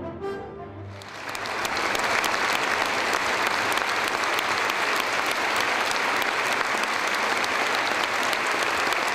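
The last notes of a symphony orchestra fade away, then a large concert-hall audience applauds steadily from about a second in.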